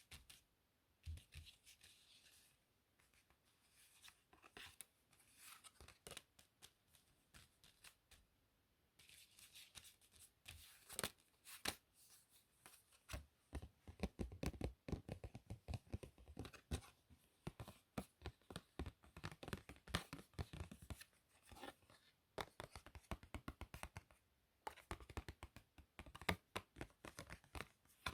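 Playing cards handled close to the microphone: soft sliding swishes and taps, with long runs of rapid card clicks, as in shuffling or flicking through a deck, around the middle and again near the end.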